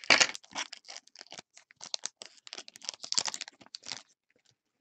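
Foil trading-card pack wrapper crinkling and tearing as it is opened by hand, an irregular crackle that stops about four seconds in.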